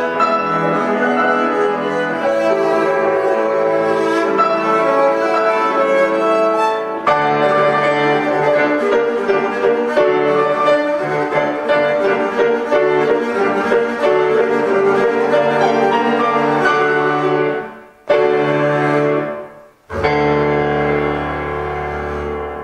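Double bass played with a bow, accompanied by grand piano, in a classical duo piece. Near the end the music breaks off briefly twice, then a long low bowed note over the piano fades away.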